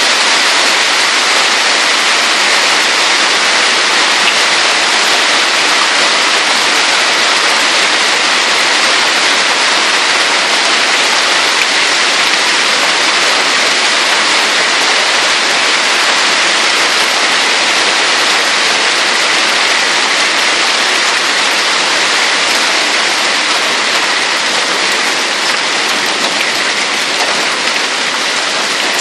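Heavy hail, stones bigger than a one-franc coin, pelting down on roofs and the street in a loud, steady hiss that eases a little near the end.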